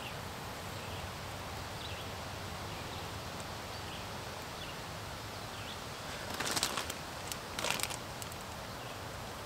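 Steady outdoor woodland hiss with faint bird chirps. About six and a half and seven and a half seconds in come two short bursts of crinkling as a plastic bag is handled.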